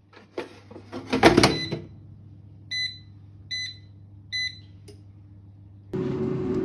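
Air fryer being loaded and started: a clatter as the basket goes in, then three short electronic beeps as its controls are pressed, a click, and near the end its fan starting with a steady whir.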